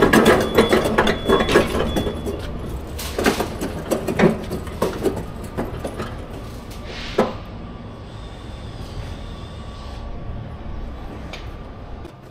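Steel hand trolley loaded with two batteries rattling and clattering as it is pushed over brick paving, with one loud knock about seven seconds in, then quieter.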